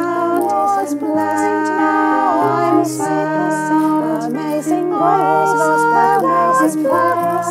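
Piano chords under one woman's voice overdubbed into several parts, singing sustained notes in close harmony.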